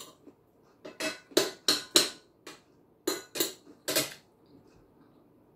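Metal fork and spoon clinking and scraping against a ceramic plate and bowl during a meal: a quick, uneven run of sharp clinks, most of them in the first four seconds.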